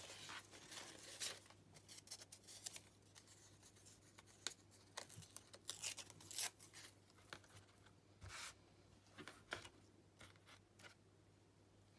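Faint handling of paper scraps: many short, irregular rustles and scratchy strokes.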